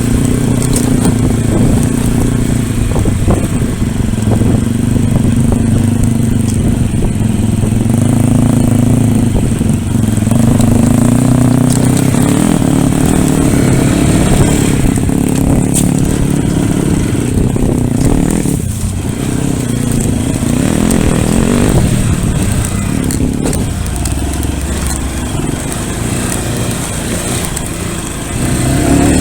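Pit bike engine running while riding, its pitch rising and falling with the throttle, easing off briefly a little past halfway.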